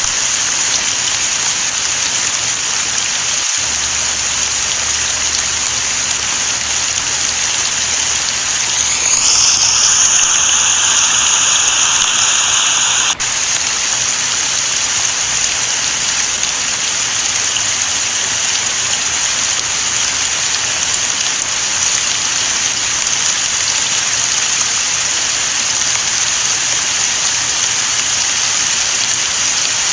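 Steady, heavy rain falling, an even hiss. About nine seconds in, a louder rushing layer swells in on top of it, then cuts off abruptly about four seconds later.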